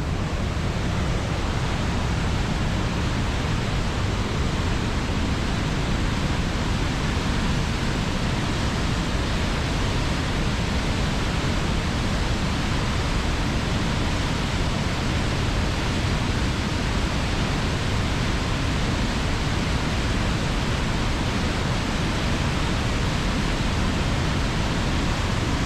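Large two-stage waterfall in full spate after heavy storm rain, a steady roar of water crashing onto the rocks below.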